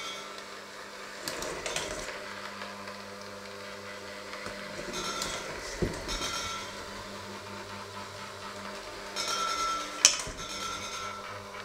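Handheld electric mixer running with a steady motor hum, its beaters working a thick mixture in a stainless steel bowl and rattling and scraping against the metal in repeated bursts. There is a sharp clink of beater on bowl about ten seconds in.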